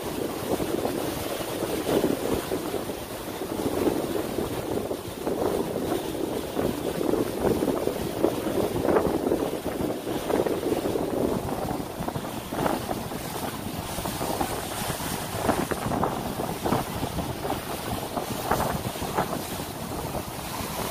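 Wind buffeting the microphone over the rush of water from a moving boat, with gusts coming harder in the second half.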